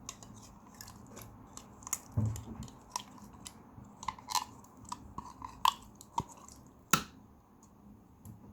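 Slime being pressed and stretched by hand, giving off irregular sticky clicks and small pops. There is a dull thud about two seconds in and a sharp snap about seven seconds in.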